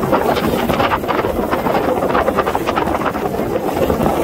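Steady jet noise from an Aermacchi MB-339 aerobatic jet flying overhead, mixed with wind buffeting the microphone.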